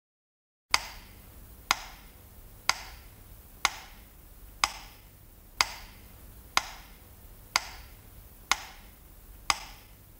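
Metronome ticking steadily about once a second, ten sharp ticks each with a short ring. This is the slow memorial metronome beat used in Russian minute-of-silence tributes.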